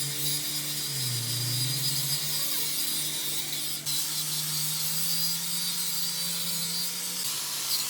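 A workshop power tool working metal: a steady motor hum under a dense, hissing cutting or grinding noise, with a brief break about four seconds in.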